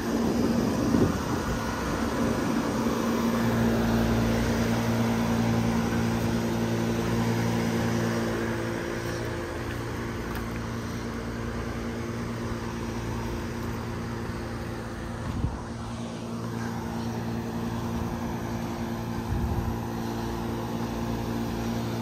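Outdoor central air conditioner condensing units running: a steady low compressor hum under the whoosh of their fans. A brief thump comes about two-thirds of the way through.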